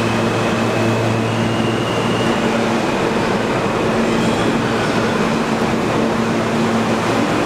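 New York City Subway R160 train running out of the station: a loud, steady rumble of wheels on rail with a steady electric hum and a faint high whine over it.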